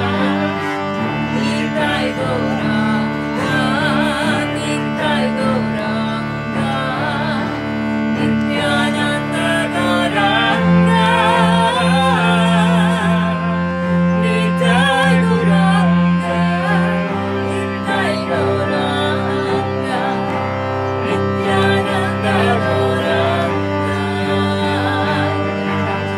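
Kirtan played on harmonium and bowed cello, with a woman singing the chant over long held chords. The chord changes about ten seconds in and again about seventeen seconds in.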